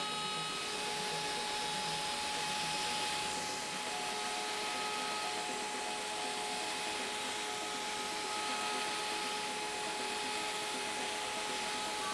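CNC router running steadily while chamfering the part's edges: a constant spindle whine of several high tones over an even rushing noise.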